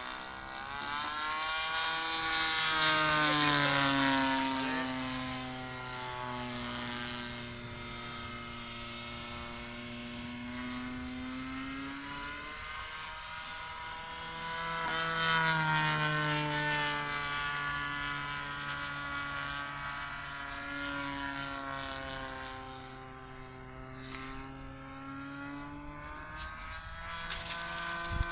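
Super Tigre 4500 two-stroke engine, converted to run on gasoline, turning a 22x8 propeller on a large radio-controlled aerobatic plane in flight. The engine note rises and falls in pitch and loudness as the plane manoeuvres, loudest in two passes, about 3 seconds in and again about 15 seconds in.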